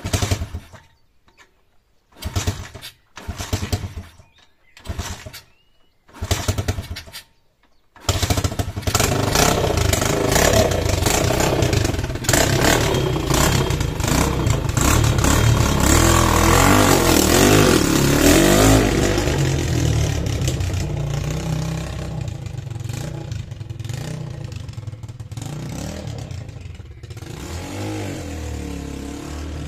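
The single-cylinder four-stroke engine of a 140 cc YX pit bike, started after winter storage: it catches for a moment and dies about five times, then starts about 8 seconds in and keeps running, rising and falling in speed before settling to a lower, steadier speed near the end.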